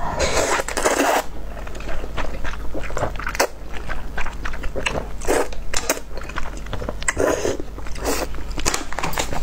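A person slurping soft rice noodles off chopsticks, with a long slurp at the start and shorter slurps later, and wet chewing and small mouth clicks between them.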